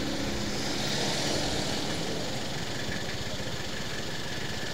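Steady road-traffic noise from a queue of cars and motorcycles idling in a traffic jam at a traffic light, with faint engine hum underneath.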